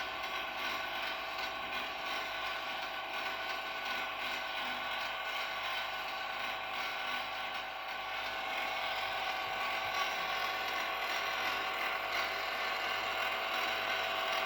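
AR-500 antenna rotator's motor and reduction gears running as the rotor turns under power, a steady geared whir with several fixed tones that grows slightly louder about halfway through.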